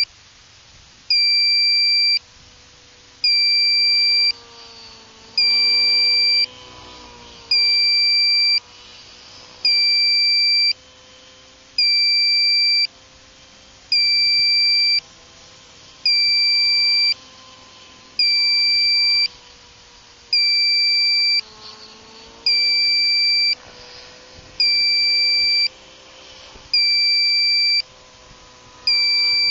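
An electronic buzzer sounds a loud, high-pitched beep about every two seconds, each beep lasting about a second. Fainter underneath, a model-airplane engine drones steadily and dips in pitch twice.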